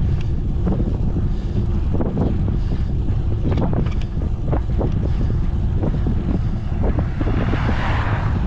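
Wind buffeting the microphone of a camera carried on a moving bicycle, a steady low rumble, with scattered clicks and knocks throughout. A brief hiss swells about eight seconds in.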